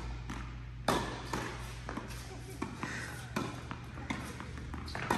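Tennis balls being struck by rackets and bouncing on the court in a quick volley exchange: a string of sharp hits, roughly seven, about half a second to a second apart, the loudest about a second in, each echoing briefly in the large indoor tennis hall.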